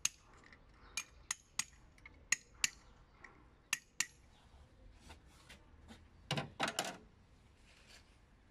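Scattered sharp clicks and clinks of hard plastic and metal parts being handled while fitting a replacement ignition coil into an engine, with a louder cluster of knocks about six and a half seconds in.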